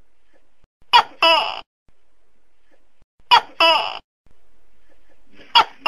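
Tokay gecko calling its two-note "to-kay" call, a short sharp note followed at once by a longer one. It repeats about every two seconds: two full calls, with a third starting at the very end.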